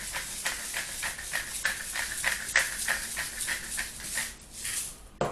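Pepper being shaken out of a shaker: quick rattling shakes, about five a second, that fade out near the end, followed by a single sharper click.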